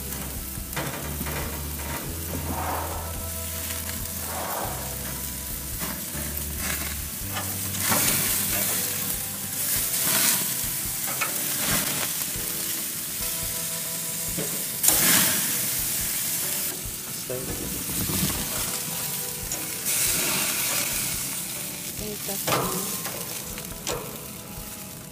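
Rib-eye steaks sizzling on a gas grill's grate, a steady hiss that surges louder several times, about 8, 10, 15 and 20 seconds in, as fat drips and flares up in the flames. Short clicks of metal tongs on the grate are heard as the steaks are turned.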